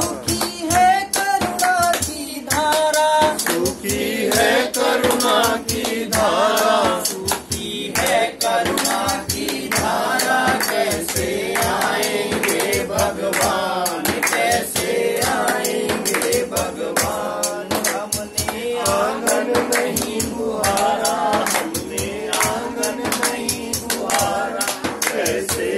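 Group singing of a Hindi devotional bhajan, kept to a steady beat by a jingling tambourine and hand clapping.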